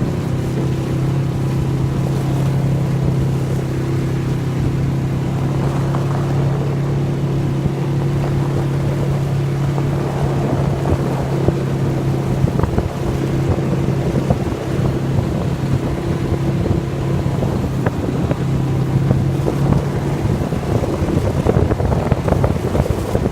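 ATV engine running at a steady pace while riding through snow, with wind noise on the microphone. The engine note holds steady, with rougher, noisier stretches about halfway through and again near the end.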